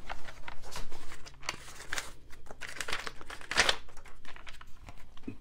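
Packaging crinkling and rustling, with light clicks and knocks from a plastic tool case as it is opened and a machinist square is taken out of its wrapping.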